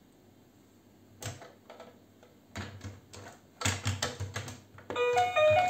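Little Tikes interactive toy dinosaur being handled: a run of hard plastic clicks and knocks. About five seconds in, the toy starts playing a bright electronic melody.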